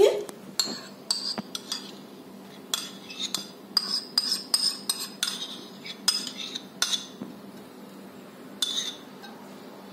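A metal spoon scraping and clinking against a ceramic bowl as ghee is scooped out into a pot: a string of irregular sharp clicks with short, light rings, thinning out near the end.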